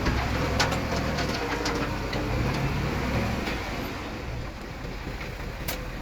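Diesel engine of heavy earthmoving machinery running steadily, with a few sharp metallic clanks, easing slightly in loudness after about four seconds.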